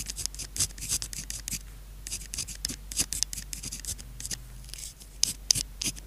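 Pen nib scratching across paper while writing characters by hand: quick short strokes, several a second, with a lull about two thirds of the way through and sharper, crisper strokes near the end.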